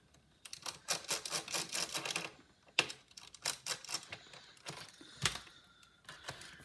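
Precision screwdriver bit clicking and scraping against a small stuck screw in a plastic laptop case, in two runs of quick clicks, with a sharper knock a little after five seconds.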